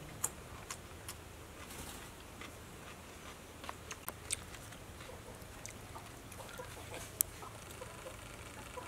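Chickens clucking faintly, with scattered short sharp clicks.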